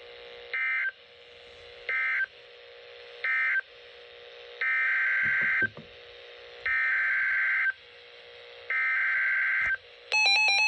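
Electronic alert beeps: three short, then three long. About ten seconds in, a rapid warbling burst of Emergency Alert System data tones begins, the coded header that opens the next warning.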